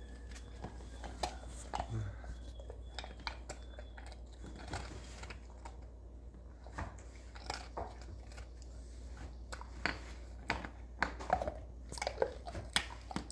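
A German Shepherd chewing a frosted dog cookie: irregular crunches and clicks, coming closer together near the end.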